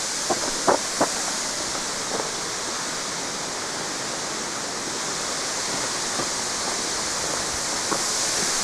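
A 2,000-foot waterfall pouring, heard as a steady, dense rush of water noise. A few light taps come in the first second.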